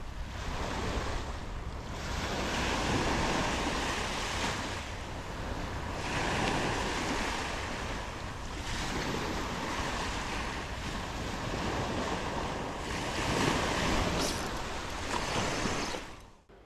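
Small surf waves breaking and washing up a sandy beach, swelling and easing every few seconds, with wind buffeting the microphone.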